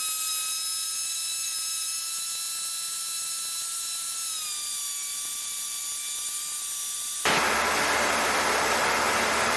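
A steady high-pitched electrical whine in the cockpit headset audio, dipping slightly in pitch about four and a half seconds in. About seven seconds in it switches abruptly to loud radio static hiss.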